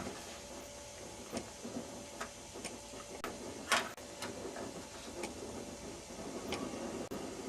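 Small clicks and taps of LED tester probes and leads being handled and set on a TV's LED backlight strip, with one sharper click a little before four seconds in.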